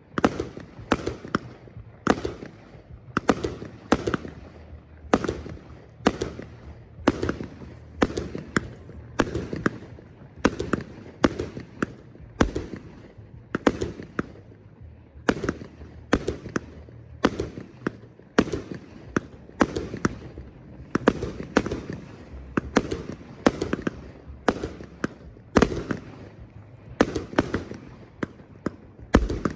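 A 49-shot 25 mm fireworks cake (World Fireworks TXB687 Triplex) firing shot after shot: a steady run of sharp bangs, roughly one or two a second, each trailing off before the next.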